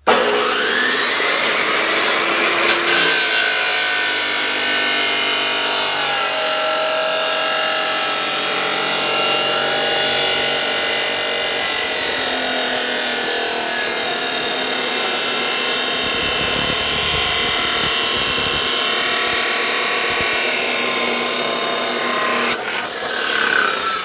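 Abrasive chop saw starting up with a rising whine, then its cut-off wheel grinding steadily through steel, loud and continuous, before it winds down near the end.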